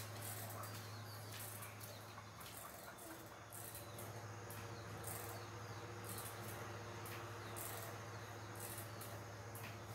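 Faint ambient sound: a steady low hum under soft, very high chirping pulses that repeat roughly once a second, insect-like.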